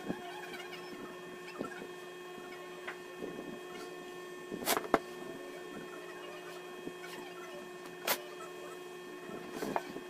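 Steady electrical hum under a few sharp clicks and taps of small phone parts being handled and set down on a hard tabletop. The loudest clicks come about five seconds in, another about eight seconds in, and a few light taps near the end.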